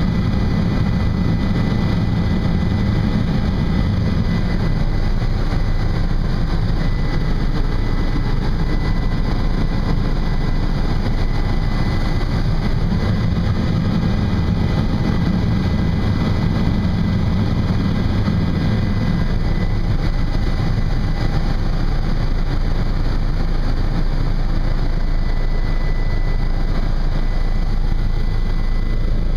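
Helicopter engine and rotor noise heard from inside the passenger cabin in flight: a steady low drone with a thin high tone above it.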